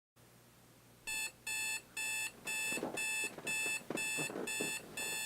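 Electronic alarm clock beeping, starting about a second in: short, steady, shrill beeps repeating about twice a second.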